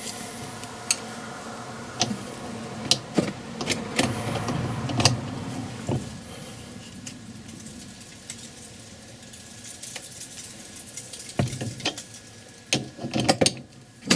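Scattered metallic clicks and clinks of spanners, nuts and hub parts being handled while a new wheel stud is wound into an MGA rear hub, with a quick cluster of sharper clicks near the end.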